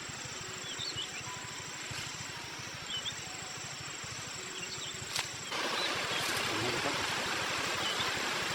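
Outdoor forest ambience: a steady hiss with a thin, continuous high insect drone and a few short bird chirps. A single click comes about five seconds in. The hiss turns suddenly louder about five and a half seconds in.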